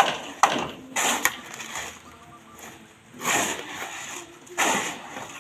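Hand digging tools at work: a few sharp knocks of a hoe striking soil and brick rubble in the first second and a half, then two longer scraping rushes of a shovel dragged through gravel.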